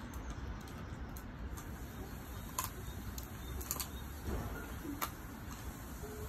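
Keeshond puppy chewing a crispy chicken foot, with a handful of sharp crunches from about two and a half to five seconds in, over a steady low background rumble.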